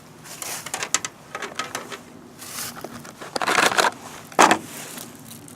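A new chainsaw chain being handled and untangled: a run of light clicks and rustling, with two louder rustling bursts about three and a half and four and a half seconds in.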